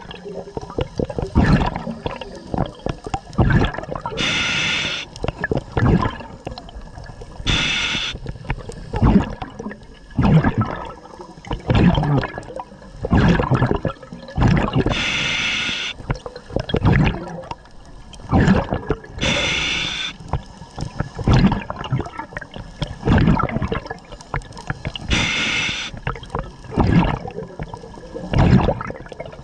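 A scuba diver breathing through a regulator underwater: five short hissing inhales a few seconds apart, with bubbling exhales between them.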